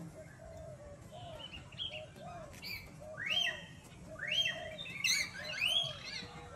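High-pitched animal calls, sweeping up and down, thicker and louder in the second half, over a steady series of short, lower notes repeating about twice a second.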